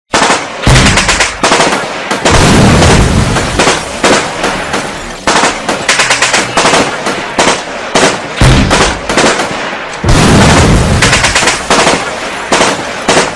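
Rapid automatic gunfire sound effects, long runs of fast cracks, with several heavy booms mixed in. It starts suddenly out of silence.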